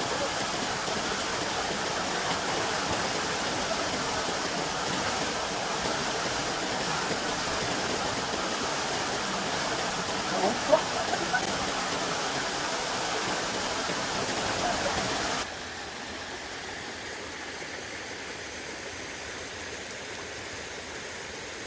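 Mountain valley stream rushing steadily over rocks, with a couple of short, sharper sounds about ten seconds in. About fifteen seconds in, it cuts to a quieter, similar rush of water.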